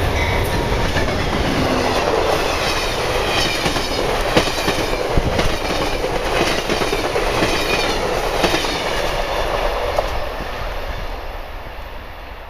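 Amtrak passenger train passing close at speed: a loud, steady rushing rumble of the coaches, with the wheels clicking over the rails. It fades away over the last couple of seconds as the train recedes.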